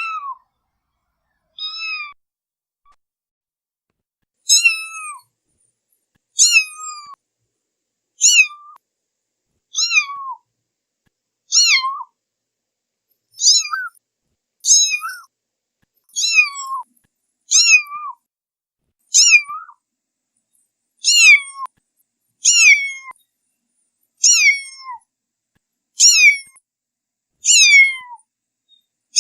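A kitten meowing over and over, about one short, high meow every one and a half to two seconds, each dropping in pitch at the end, with silence between the calls.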